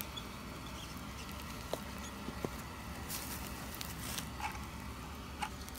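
Light, scattered crackles and a few short hisses from a small fire of burning leaves and charcoal, over a steady low hum.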